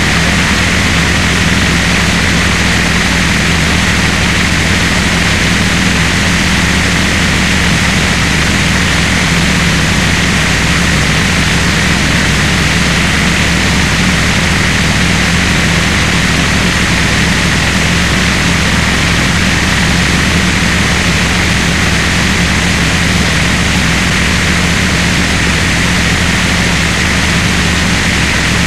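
Harsh noise music: a dense, unbroken wall of distorted electronic noise, loud and unchanging, with a low drone under a bright hiss.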